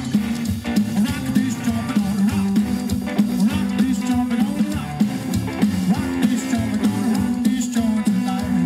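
Live rockabilly trio playing an instrumental passage: electric guitar to the fore over double bass and a drum kit keeping a steady beat.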